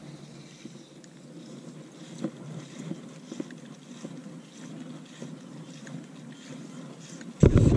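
Light wind on a GoPro microphone with faint handling sounds and a few soft taps from an angler working fly line on a boat. Loud music cuts in suddenly near the end.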